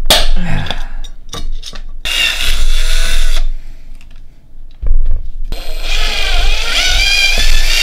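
Electric drill boring a small hole in an aluminium enclosure: a few knocks of handling, a short burst of drilling about two seconds in, then after a brief pause the drill starts again about five seconds in and keeps running with a steady whine.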